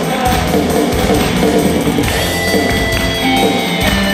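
Instrumental passage of a rock-style song: guitars and a drum kit playing with a steady beat, no singing, with held high notes coming in about halfway.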